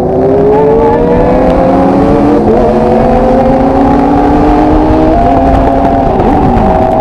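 Motorcycle engine pulling under throttle while riding, its pitch climbing slowly and then changing about five seconds in, over a steady rush of noise.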